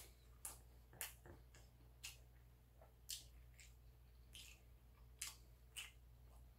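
Faint eating sounds: a scattering of short, soft clicks and smacks, about seven in all, from chewing and a metal fork picking at side dishes, over a low steady hum.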